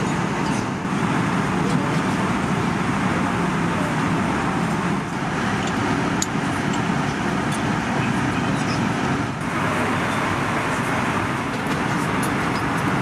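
Steady rushing cabin noise of an Airbus A320 in flight, the airflow and engine noise heard from a passenger seat, with a few brief dips in level.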